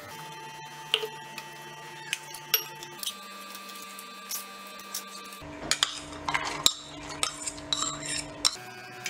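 Stainless steel kitchenware clinking and knocking: a few scattered knocks as a steel strainer and bowl are handled, then a denser run of spoon clinks and scrapes against a steel mixer jar as soaked nuts are spooned in, over the last few seconds.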